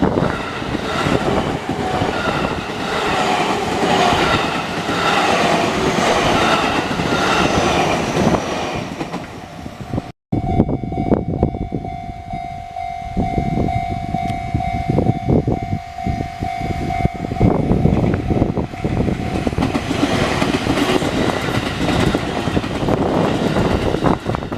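Trains passing over a railway level crossing, with the clatter and rumble of wheels on rail. There is a cut about ten seconds in. After it a steady tone is held for several seconds over the passing train.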